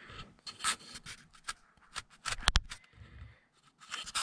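Handling noise on a GoPro camera: scattered rubbing, scraping and clicking as it is moved, with a sharp double click about halfway through.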